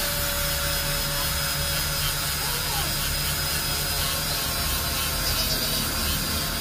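A small handheld power tool running steadily: an even whirring noise with a thin, steady high tone over it.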